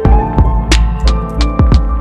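Electronic music with a steady drum-machine beat and held synth tones.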